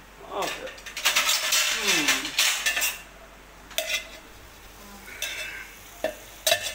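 Kitchen utensils and dishes clattering and scraping for about two seconds, then a few separate sharp clinks.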